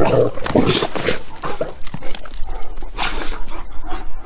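Great Danes playing, with short dog noises and a quick, irregular run of knocks and scuffles.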